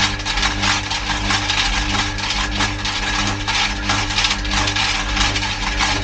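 Washing machine drum turning, with a steady low motor hum under a continuous clatter of clicks and clinks from things rattling against the steel drum.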